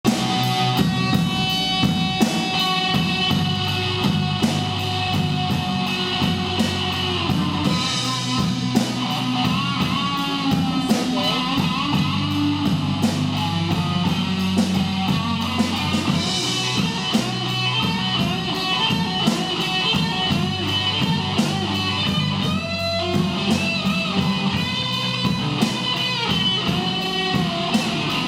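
A band playing an instrumental passage of a rock song: guitar over a drum kit keeping a steady beat, with no singing.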